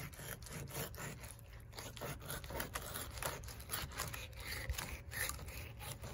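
A thin fillet knife scraping and slicing through a flathead catfish's flesh along the backbone, in short, irregular strokes as the fillet is worked free.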